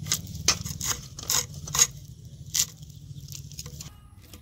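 Scales being scraped off a whole fish against the edge of an upright boti blade: a run of quick rasping strokes, about seven in the first two and a half seconds, then the scraping stops.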